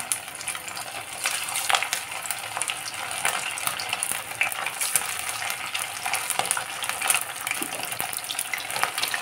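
Battered small-fish patties sizzling and crackling as they deep-fry in hot mustard oil, with a continuous hiss dotted with sharp pops.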